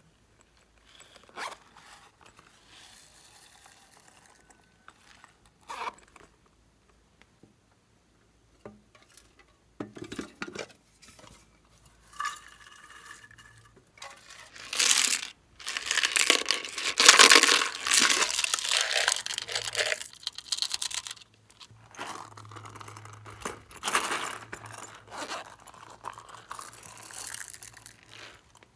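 Small craft toppings (sequins, glitter paper pieces and plastic pearl beads) rattling and pattering as they are shaken out of plastic cases onto slime, with clicks and taps of the cases being handled. The densest, loudest rattling comes about halfway through.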